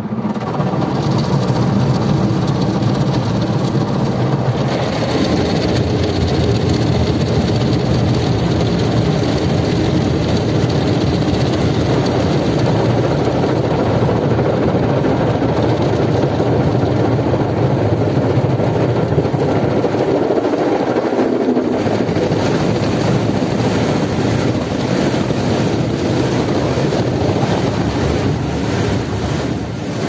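Automatic car wash heard from inside the car cabin: a loud, steady rush of water jets spraying the windshield over the running wash machinery. The low rumble thins out about two-thirds of the way through.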